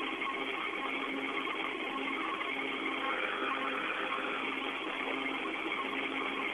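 Steady hiss of an open space-to-ground radio channel between transmissions, narrow like a telephone line, with a faint low hum underneath.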